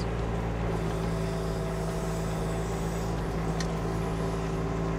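Kubota diesel engine of a KYMRON XH26 mini excavator running at a steady speed while the machine works. A faint higher whine joins in about a second in and fades out partway through.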